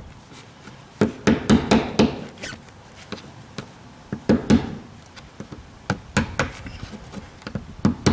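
Groups of sharp knocks and scraping, in bursts a couple of seconds apart. A tool is being worked against the old garage door quick-release lock to free it from the door.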